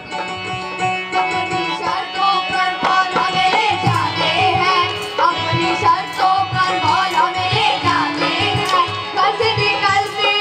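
Qawwali music performed live by a children's group: hand drums keeping a driving rhythm under steady held notes, with singing coming in about three seconds in and hand claps on the beat.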